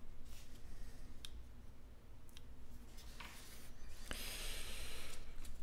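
Glossy trading cards being flicked through by hand: a few light clicks as single cards snap and slide off the stack, then a longer sliding rustle about four seconds in.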